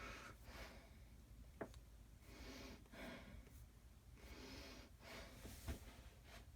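Near silence: a few soft breaths and two light clicks of small things being handled, one about a second and a half in and one near the end.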